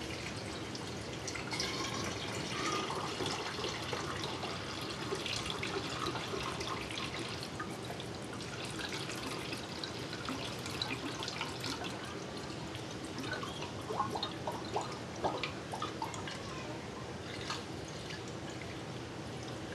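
Vinegar-eel culture poured slowly from a jug through a plastic funnel into a glass long-neck bottle, trickling and dripping steadily, with a few sharper clicks about three-quarters of the way through.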